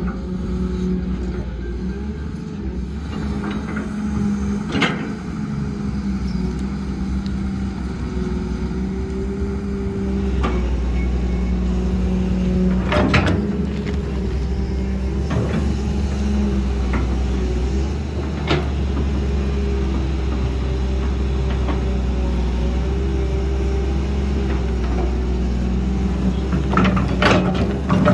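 Heavy diesel construction machinery running steadily, its engine note growing heavier about a third of the way in, with scattered sharp knocks and clanks.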